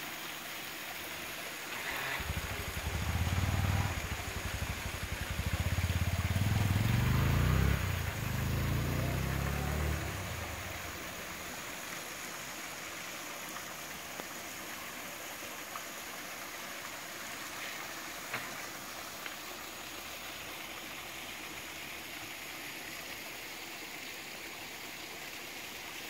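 Steady rush of water from a small waterfall and the trickle spilling over a stone weir into a rocky pool. From about two to ten seconds in, a louder, uneven low rumble lies under it.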